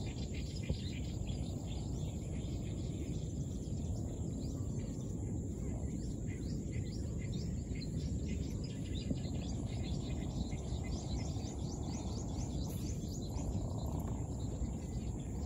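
Many small, short bird chirps over a steady low background noise.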